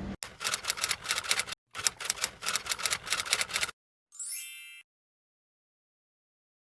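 Rapid typewriter-style clicking sound effect lasting about three and a half seconds, with two short breaks, then a brief rising chime.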